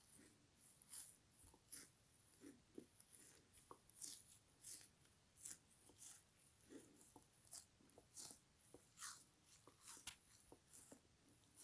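Frozen foam kitchen sponge being chewed: faint, short crisp crunches of the icy foam between the teeth, repeating a little more than once a second.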